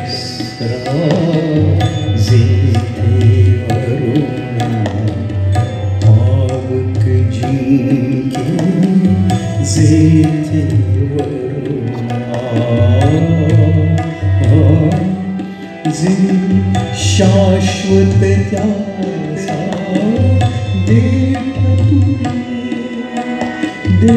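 Live Indian ensemble music: tabla playing a steady rhythm under a harmonium and keyboard melody.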